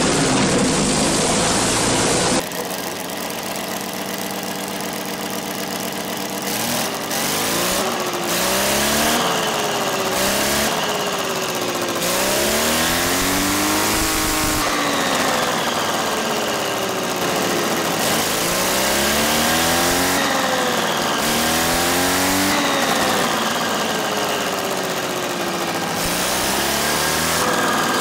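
For the first two seconds a full-size Merlin V12 aero engine is running. Then an Artus scale model V12 engine idles steadily for a few seconds and is revved up and down over and over, its pitch rising and falling every two to three seconds.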